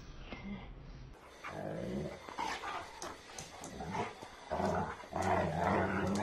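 A dog growling and grumbling in several short bursts while play-fighting with a cat, the bursts growing louder towards the end.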